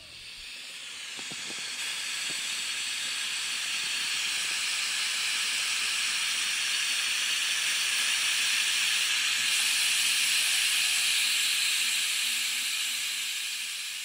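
A steady hiss like escaping steam, swelling up over the first few seconds, holding, then beginning to fade near the end.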